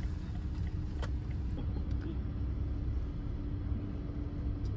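Steady low rumble of a BMW heard from inside its cabin, with a faint steady hum and a single sharp click about a second in.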